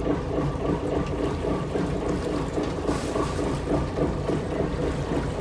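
Motor boat's engine droning steadily under way, with water rushing along the hull; a brief rush of hiss about three seconds in.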